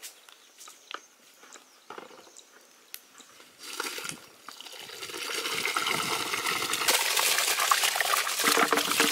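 Soaked basmati rice and its soaking water pouring from a large steel bowl into a big pot of hot water, a rushing splash that builds from about four seconds in and is loudest near the end. Before it, a few light clicks.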